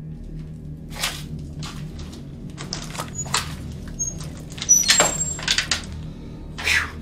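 A door being handled and pushed open: irregular clunks and knocks with a few short, high squeaks, the loudest knocks about five seconds in.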